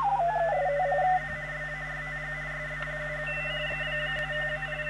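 Whistling beat notes from the 80 m direct conversion receiver's speaker. Several tones drift slowly in pitch, as when tuning across carriers: one falls in the first second and then wavers, and higher whistles join partway through. A steady low hum runs underneath.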